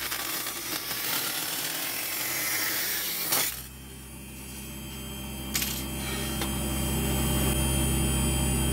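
Small table saw cutting through thin copper sheet, about three seconds of cutting noise ending in a sharp click as the strip comes free. The saw then runs on unloaded with a steady hum.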